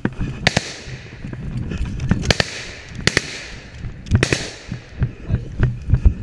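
Small-arms gunfire in woodland: several sharp single shots at irregular intervals, two in quick succession about four seconds in, each with a short echoing tail. Low thuds and rustling underneath as the camera wearer moves through the undergrowth.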